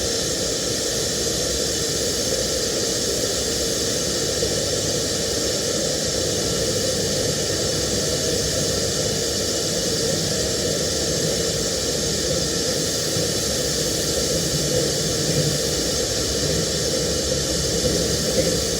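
TIG welding arc hissing steadily and without a break.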